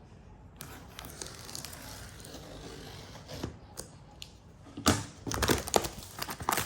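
Packaging of a box of new gas struts being opened: rustling, crinkling and tearing, quiet at first and louder in the last couple of seconds.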